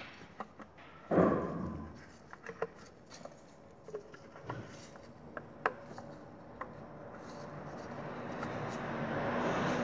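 Gloved hands working on top of a car engine: scattered clicks, knocks and rubbing of rubber and plastic parts as spark plug wire boots are fitted, with one louder knock and rustle about a second in. Over the last few seconds a steady low hum and a rushing noise build up.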